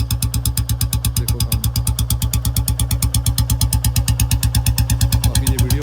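Royal Enfield Bullet 350 single-cylinder engine idling through a short bottle silencer, a steady, even train of exhaust beats. The idle is slightly raised because the engine is still cold and the automatic choke lifts the RPM.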